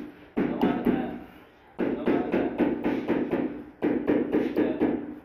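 Rubber mallet tapping a wall tile to bed it into the adhesive, in three quick bursts of rapid knocks with short pauses between.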